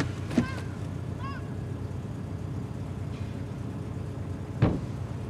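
Car engine idling just after starting, a steady low hum heard from inside the cabin. Two short knocks cut across it, one near the start and a louder one about four and a half seconds in.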